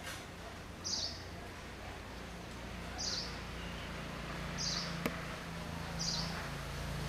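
A bird's short, high chirp, repeated four times at steady intervals of about one and a half to two seconds, over a steady low hum. A single sharp click comes about five seconds in.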